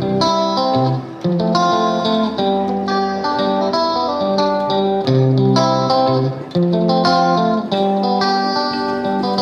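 Background music led by a plucked guitar playing a melody of separate, ringing notes.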